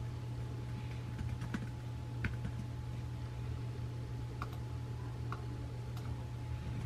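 Typing on a laptop keyboard: light, irregular key clicks, a few a second, over a steady low hum.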